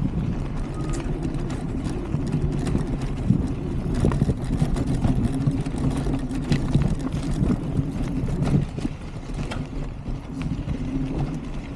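Adaptive mountain bike rolling over a rocky dirt trail: a steady low rumble of tyres on dirt and gravel, with frequent sharp clicks and rattles as stones are struck and the bike's frame and parts shake.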